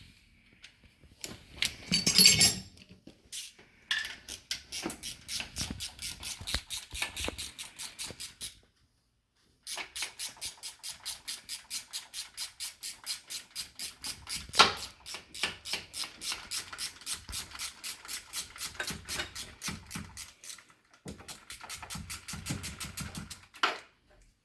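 Socket ratchet clicking steadily, about six clicks a second, in long runs as a timing chain guide bolt is spun out, with a metal clank about 2 seconds in and a sharp knock midway.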